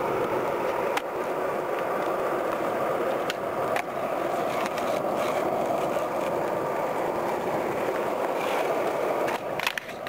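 Skateboard wheels rolling steadily over smooth pavement, with a few light clicks and rattles from the board. The rolling noise thins out and turns uneven near the end.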